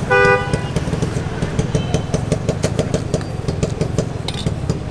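A small engine running steadily with a low, fast-pulsing rumble, with a short loud horn beep right at the start and scattered sharp clicks.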